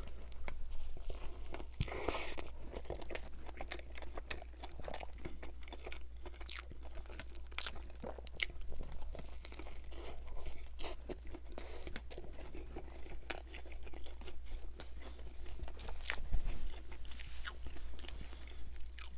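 Close-miked eating of a Big Mac: bites into the soft sesame bun and lettuce, then wet, crunchy chewing with irregular mouth smacks and clicks, a couple of louder bites about two seconds in and near the end.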